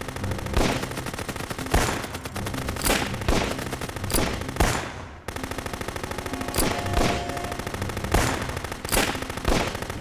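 Rapid, continuous gunfire-like popping and crackling, like a machine-gun fusillade, with louder single bangs every second or so. It dips briefly about halfway through, then picks up again.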